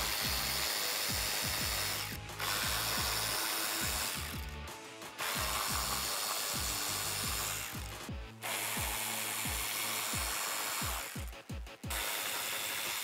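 Cordless power ratchet running in about five spurts of two to three seconds each, with short pauses between, as it backs out the screws holding a chin spoiler to a car's front bumper.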